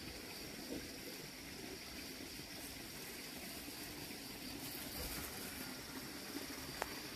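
Faint outdoor background: a steady high-pitched hiss over a low, uneven rumble, with a small knock about a second in.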